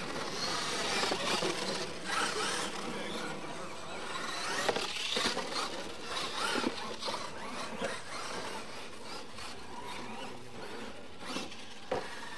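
Electric motors of radio-controlled Losi LMT monster trucks racing on dirt, whining up and down in pitch as the throttle is worked, over a steady rush of tyre and drivetrain noise, with a few short knocks.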